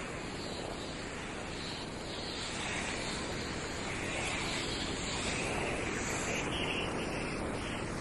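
Ocean surf breaking and washing up the sand in a steady rush, swelling a little louder partway through, with wind buffeting the microphone.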